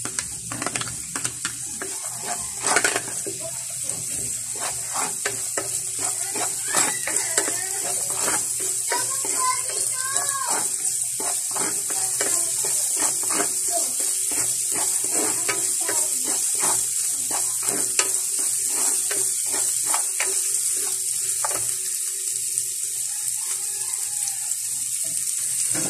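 Garlic and onion sizzling in hot oil in a frying pan, a steady high hiss, with a ladle repeatedly scraping and knocking against the pan as they are stirred. This is the sauté at the start of a cream sauce.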